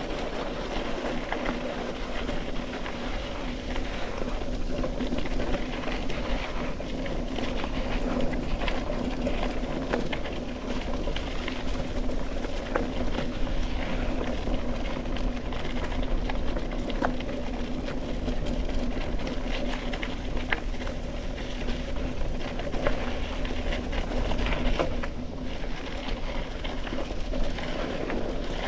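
Mountain bike rolling along a packed-dirt singletrack trail. The tyres keep up a steady humming buzz on the dirt, the bike gives frequent small rattles and clicks over bumps and roots, and wind rumbles on the microphone.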